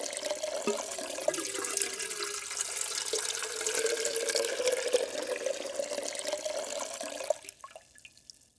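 Water pouring and splashing into the Ninja Foodi's inner cooking pot over the ribs, filling it to the pressure-cooking line; the pour stops abruptly near the end.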